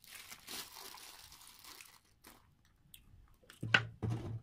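Water poured from a plastic bottle into a paper cup, a rushing sound lasting about two seconds. Near the end come two short, low vocal sounds from a man.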